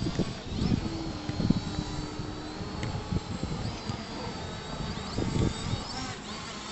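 Gusty wind buffeting the microphone in uneven low thumps, with the faint, thin, steady high whine of a small drone's propellers behind it.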